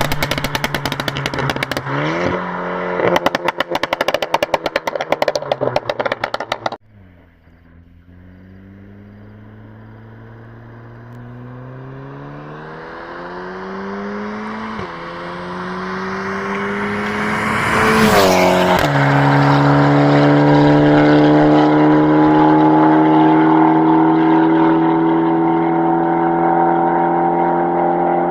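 Volkswagen Golf 6 R's turbocharged four-cylinder through a large-bore 89 mm exhaust, first revving with rapid crackling pops and bangs. It then cuts off suddenly and accelerates hard, the engine note climbing and dropping at two gear changes before pulling up again, growing loud.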